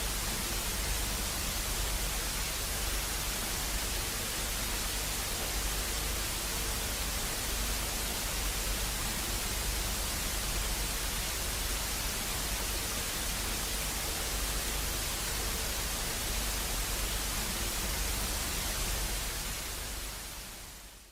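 Steady static hiss with a low hum under it, fading out near the end into silence.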